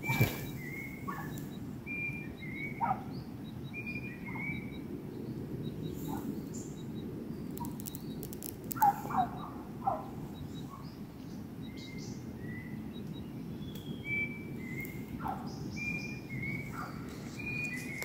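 Forest birdsong: a bird repeats a short two-note whistle, the second note a little lower, again and again. A few lower, louder short calls come about halfway through, over a steady low background hum.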